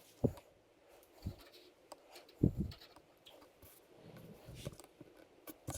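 A few soft, low knocks and light handling clicks over faint room tone, with no power tool running.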